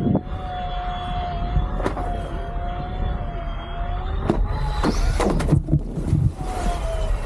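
Flite Ultra eFoil's electric motor and propeller giving a steady whine over wind buffeting the microphone. About five seconds in, the board slaps down onto the water with a burst of splashing, and the whine comes back briefly, falling, near the end.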